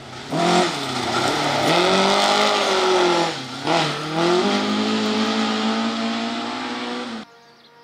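Rally car at full throttle on a loose gravel stage, its engine revving high, dipping briefly twice, then pulling hard again, over the hiss of tyres spraying gravel. The sound cuts off suddenly near the end.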